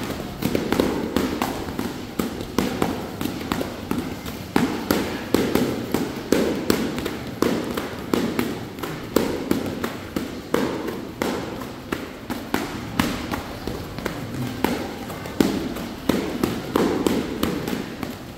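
Heavy battle ropes whipped in alternating waves, slapping the rubber gym floor in a fast, continuous run of slaps.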